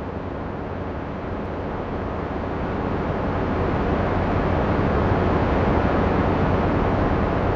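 AI-generated Martian wind sound effect, made with PopPop AI: a steady wind noise that grows a little louder about three seconds in.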